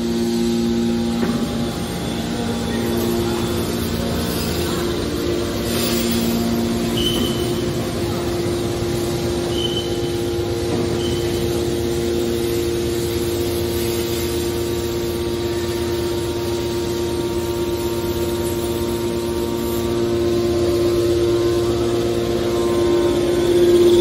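Electric motor and hydraulic pump of a scrap metal baler running steadily, a constant hum with a held tone.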